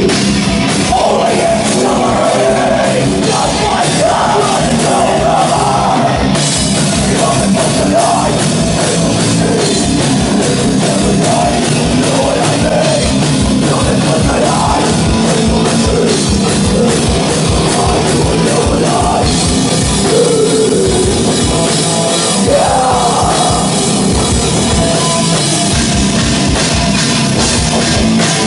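Live extreme metal band playing loud and without pause: distorted electric guitars and bass over a drum kit with rapid bass-drum strokes.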